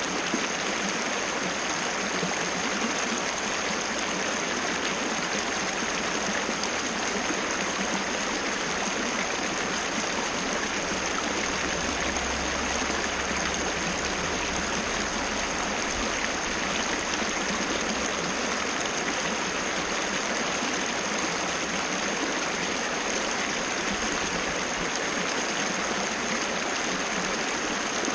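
Water of a small waterfall cascading, a steady, unbroken rush and splash.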